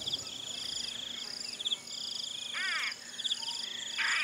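Insects, cricket-like, trilling in repeated high buzzy runs of about a second each. A short chirping animal call comes about two and a half seconds in, and a series of short calls begins near the end.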